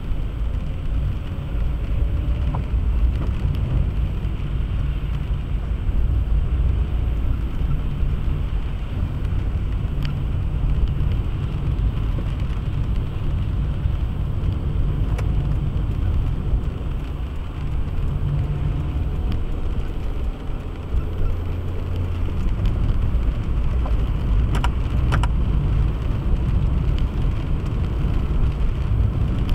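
Steady low rumble of a car driving on a highway, engine and tyre noise, with a few faint clicks.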